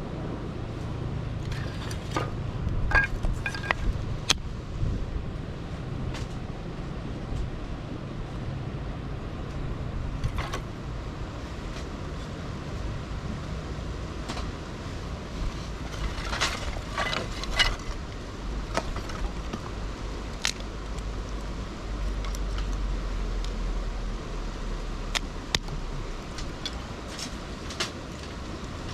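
Steady low rumble of distant road traffic, with scattered short clicks and knocks over it.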